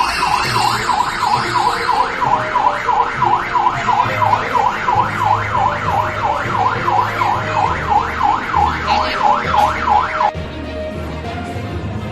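Electronic siren in a fast yelp, rising and falling about three times a second, that cuts off suddenly about ten seconds in. Background music with a low beat plays underneath and carries on after it.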